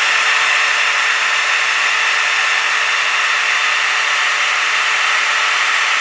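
Power drill running steadily at full speed, boring through a wooden board with a masonry drill bit, a steady motor whine over the cutting noise.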